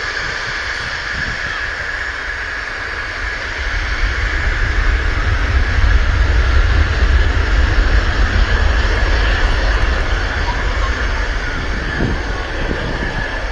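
Jet engines of a twin-engine airliner running at taxi power as it turns onto the runway: a steady whine over a deep rumble that swells about four seconds in and eases off near the end.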